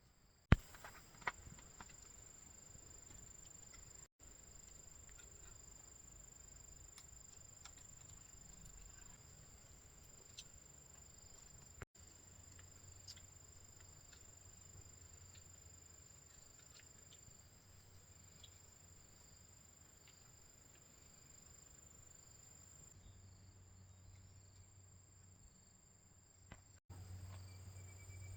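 Faint, steady high-pitched chirring of insects, with scattered small clicks and one sharp knock about half a second in.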